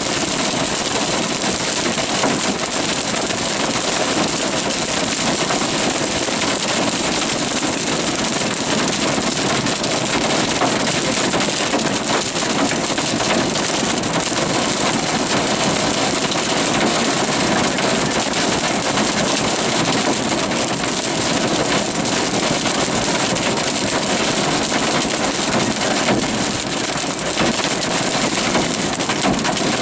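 Heavy wind-driven rain pelting a vehicle, a steady dense hiss with no let-up, over the vehicle's running engine.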